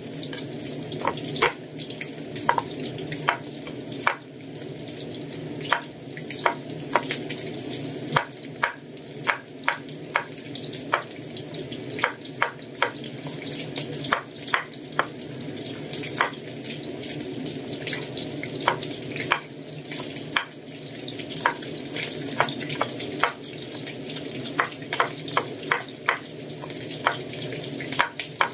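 Chinese cleaver chopping garlic cloves on a wooden cutting board: irregular sharp knocks, often in quick runs, over a steady hiss.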